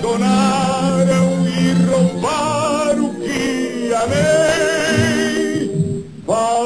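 A male voice singing in an old-fashioned operatic style, holding long notes with a wide vibrato over a steady instrumental accompaniment. The singing breaks briefly near the end, then the next phrase begins.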